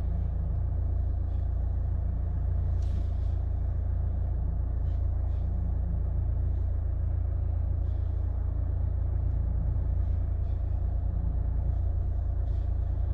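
Chevrolet Malibu backing up slowly: a steady low rumble of the car moving, with no brake squeal, since the squeak when reversing has been fixed.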